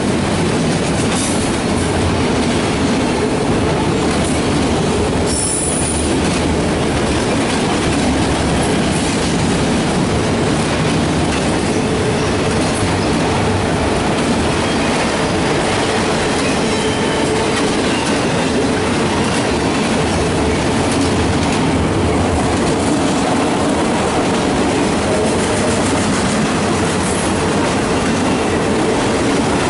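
Empty autorack freight cars of a CSX train rolling past close by: a steady, loud rumble and rattle of steel wheels on rail, with a faint steady whine coming and going in the second half.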